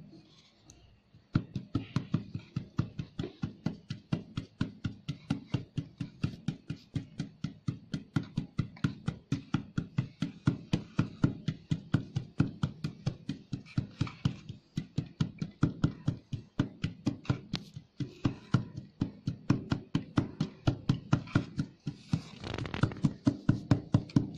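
Dental cast mold filled with wet dental stone being knocked against the bench over and over, a steady series of sharp knocks about three a second starting about a second in. The knocking works the stone down into the mold so no gaps are left.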